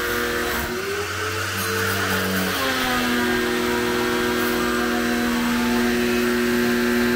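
Agaro Royal 1800 W electric pressure washer's motor and pump running under load as its jet sprays a motorcycle, with a hiss of water spray. The motor's hum shifts in pitch during the first few seconds, then holds at one steady pitch.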